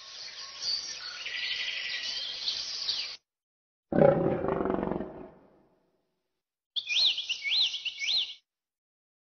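Birds chirping, then a lion's roar-like growl about four seconds in. Near the end come three high whistling sweeps, each rising and falling.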